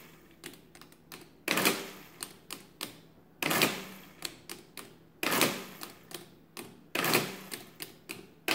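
Friden ACG electromechanical calculator running add cycles: five short bursts of motor-driven mechanism clatter about every two seconds, each dying away over about a second. Lighter clicks of the keys being set come in between.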